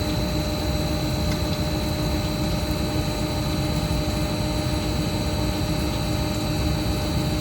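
CNC drilling special-purpose machine running: a loud, steady mechanical noise with a constant low hum and a high, steady whine.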